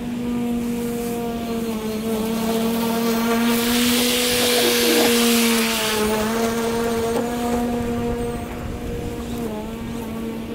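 Ego battery-powered push mower running and cutting grass, with a steady electric hum from its spinning blade. From about three and a half seconds in a louder rush of cutting noise comes as it passes close through the grass, and the hum dips slightly in pitch a few times under the load.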